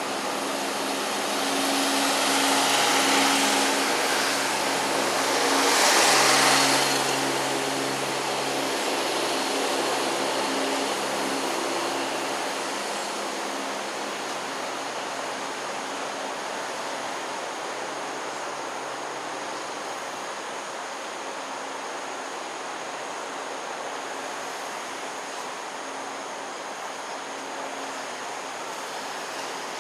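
A motor running, with a steady low hum under a broad hiss. It swells loudest in the first seven seconds, then settles to a lower, steady level.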